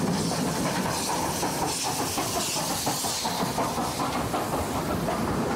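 Steam locomotive passing with a train, steam hissing out around its cylinders over the rumble and clatter of wheels on rails. The hiss is strongest in the first three seconds or so.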